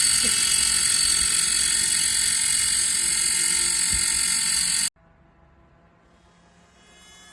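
Small battery desk fan running fast: a loud, steady whir with a high whine. It cuts off abruptly about five seconds in, leaving only a faint hum.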